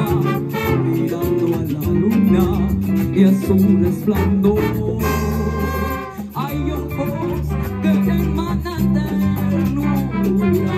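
A live Latin band playing an up-tempo number: bass line, guitars, keyboard, drums and a horn section, with one long held note about halfway through.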